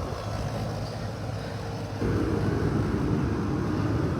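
10-ton rooftop package HVAC unit running with a steady mechanical hum. About two seconds in it steps up louder and a steady tone joins it.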